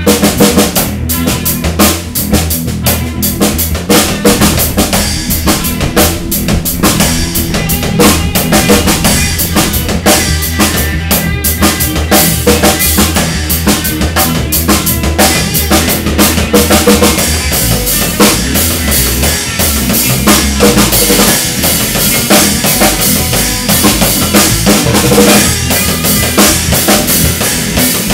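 Live rock band playing an instrumental: a drum kit struck busily with kick drum and snare, over electric guitar and electric bass.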